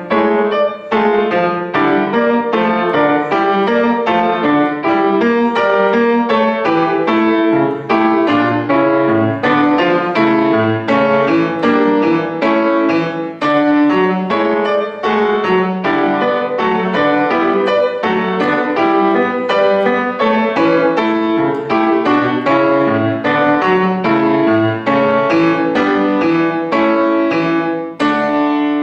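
Solo piano playing a lively passage of quick, closely spaced notes, ending on a chord that rings out near the end.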